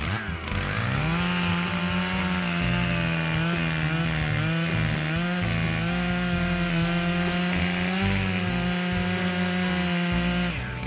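Two-stroke chainsaw running at high revs. The engine note dips and climbs back up in the first second, holds steady, then drops near the end.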